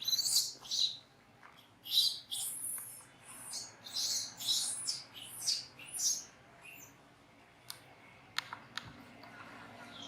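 Young macaque crying in a run of shrill, high-pitched squeals that die away after about six seconds. A few short sharp clicks follow near the end.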